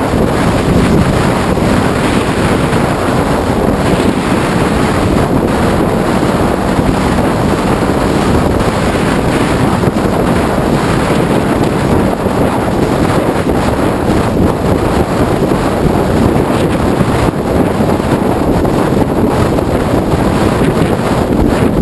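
Steady wind rush on a microphone mounted on a Honda ST1100 Pan European touring motorcycle cruising at motorway speed.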